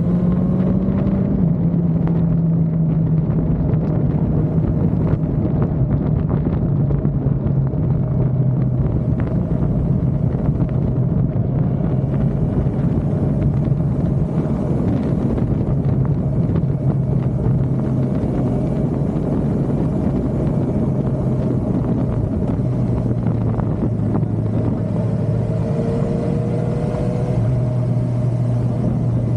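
Suzuki motorcycle engine running steadily at road speed, its note easing down and back up a few times with the throttle, over steady wind and road noise.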